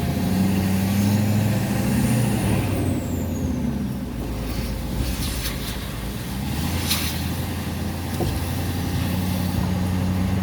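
A truck's engine running steadily while driving, under a steady rush of tyre noise on a wet, flooded road. There is one short tick about seven seconds in.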